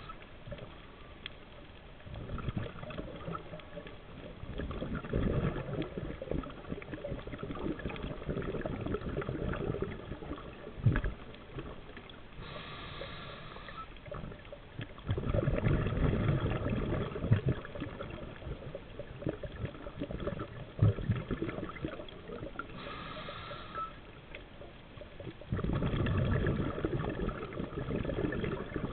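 Scuba diver's regulator heard underwater: a short hiss of inhalation, then several seconds of rumbling exhaled bubbles, the cycle repeating about every ten seconds.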